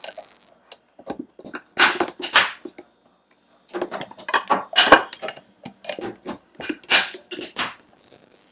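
Glass meal-prep containers being closed: plastic lids with locking clip tabs pressed on and snapped shut, and the containers set down and stacked on the countertop. An irregular run of sharp clicks and clacks, loudest about two, five and seven seconds in.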